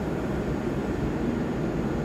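Steady low rumble and hum from an Amtrak passenger train standing at the platform, with no distinct events.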